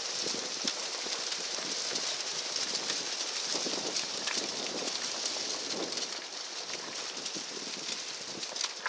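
Large goma ritual bonfire burning with a continuous crackling hiss and many sharp pops.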